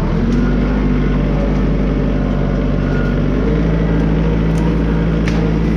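Branson tractor's diesel engine running steadily, its note dropping to a lower pitch about three and a half seconds in, with a few sharp clicks near the end.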